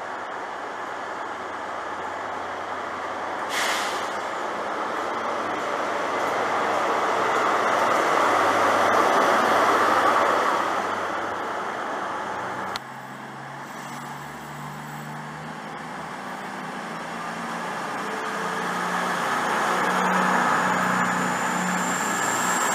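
A First Great Western HST diesel train running past, its rumble swelling to a peak and easing off, with a short hiss of air about four seconds in. A sudden cut follows, and then a CrossCountry Voyager diesel multiple unit pulls away, its underfloor diesel engines humming steadily, with a high whine rising near the end.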